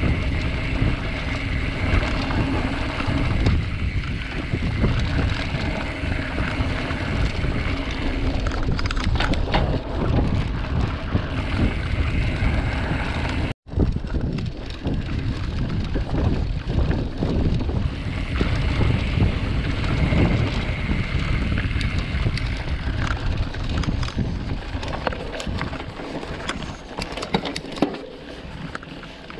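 Wind buffeting the action camera's microphone while a full-suspension mountain bike rolls fast over a dirt trail, its tyres crunching on the ground and the bike rattling over bumps. The sound drops out for an instant about halfway through, then goes on and gets quieter near the end.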